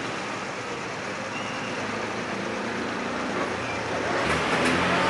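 Steady city street traffic noise, with a motor scooter passing close about four seconds in, its engine getting louder.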